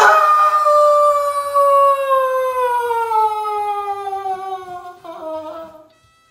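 A single long howl that swoops up in pitch at the start, then holds and slowly falls for about six seconds before breaking off near the end.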